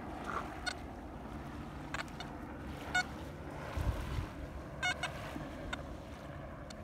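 XP ORX metal detector giving short, scattered beeps as its elliptical coil is swept over volcanic beach sand, over a steady low background rumble.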